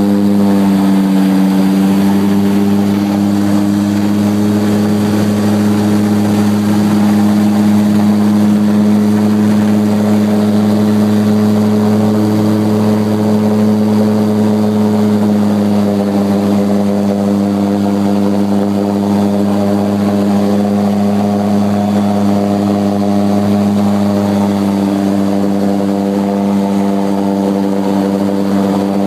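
Floatplane's propeller engine heard from inside the cabin: a loud, steady drone whose pitch shifts slightly about a second in and again about halfway through.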